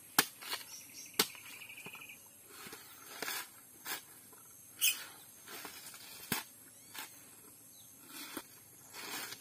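Machete chopping into a coconut: sharp strikes a second or more apart, with softer scraping and tearing of the husk fibres between them. A short high chirping trill about a second in.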